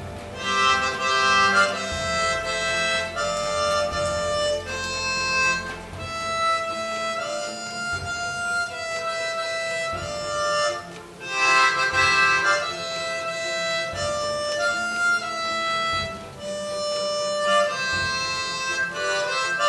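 Harmonica played solo: a tune of chords and held notes that change every half second to a second, in several phrases with brief pauses between them.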